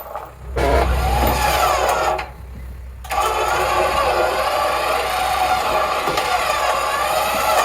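An engine starts and then runs steadily: a low rumble begins about half a second in, drops away briefly about two seconds in, and settles into an even run from about three seconds in.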